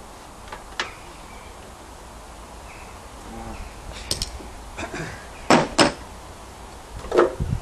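A series of sharp knocks and clinks from objects being handled, two loud ones close together about five and a half seconds in and another near the end, over a steady low outdoor background.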